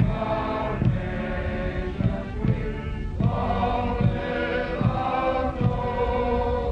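A slow hymn sung by massed voices with band accompaniment, each held note changing slowly, over a low drum beat that falls somewhat less than a second apart.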